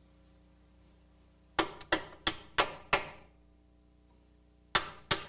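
Hammer blows on the nut at the end of a GM upper control arm mounting stud, driving the stud in through the frame mount. Five sharp metallic strikes come about three a second, then after a pause two more near the end, each with a short ring.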